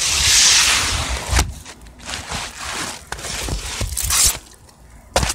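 An asphalt shingle scraped and slid across the gritty roof surface as it is set onto the starter strip: a long rasping scrape at first, then shorter scrapes and a few knocks.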